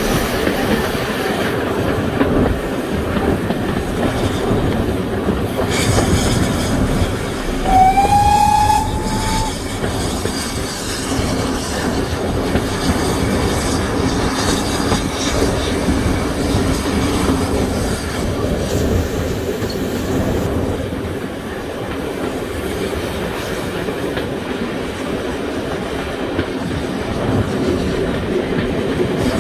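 Steam-hauled heritage passenger train running steadily, wheels clicking over the rail joints. About eight seconds in, a short whistle sounds once for about two seconds, rising slightly in pitch.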